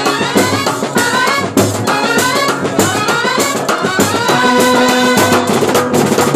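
Kerala bandset brass band playing loud: trumpets and clarinets carry a melody in quick runs over dense drumming on side drums, bass drums, toms and cymbal. About four seconds in, the brass holds long notes for about a second.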